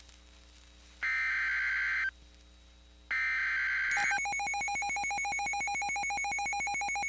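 Emergency Alert System SAME header: two bursts of digital data tones, each about a second long and a second apart. About four seconds in, the steady EAS attention tone starts, announcing a new warning.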